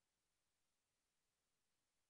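Near silence: only a faint, even hiss of the recording's noise floor.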